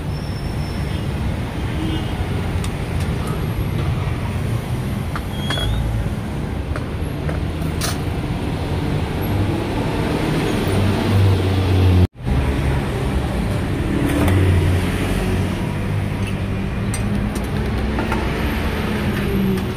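Steady road-traffic rumble with a few light clicks on top, cutting out for an instant about twelve seconds in.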